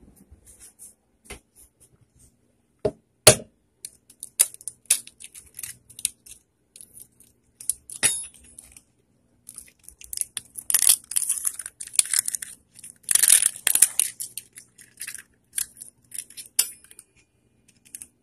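Kitchen handling sounds while an egg is cracked into a plastic blender cup: scattered sharp taps and clicks, with a couple of stretches of crackly rustling in the second half.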